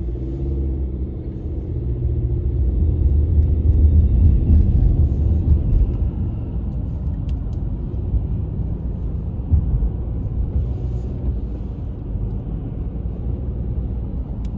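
Low rumble of a car driving, heard from inside the cabin: engine and road noise that grows louder over the first few seconds, then holds steady.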